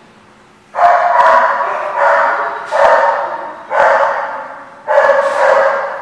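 A dog barking in play, about five loud barks starting near the first second, each trailing off over about a second.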